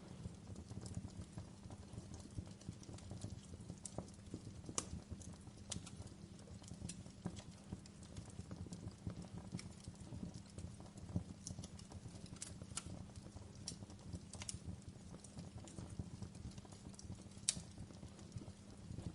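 Wood campfire crackling, with irregular sharp pops and snaps over a low steady rumble of burning; one louder pop stands out near the end.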